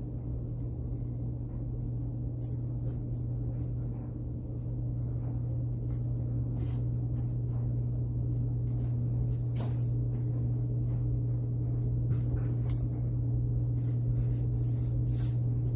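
A steady low machine hum, with a few faint scattered clicks and rustles of a strap and buckle being threaded and pulled tight.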